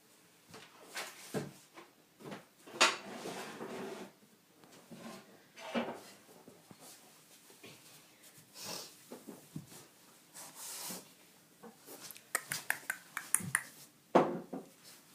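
Irregular household handling noises: scattered rustles, soft knocks and light clicks, with a quick run of ticks near the end.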